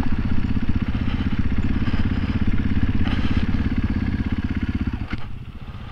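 Off-road motorcycle engine running at steady throttle while riding a gravel track, heard from on the bike. It eases off and gets quieter about five seconds in.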